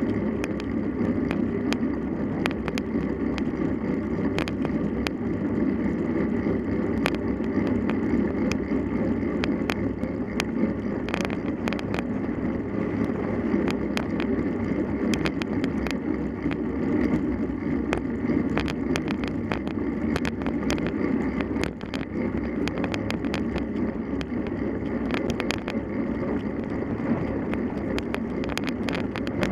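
Bicycle being ridden in a race: a steady rumble of tyres and wind, broken by frequent sharp rattles and clicks.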